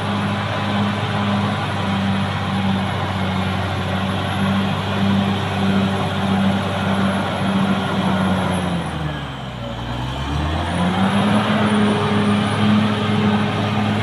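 Caterpillar D6R XL bulldozer's diesel engine running steadily under work, with a faint high whine riding on it. About two-thirds of the way through, the engine speed sags for a second or so and then climbs back up.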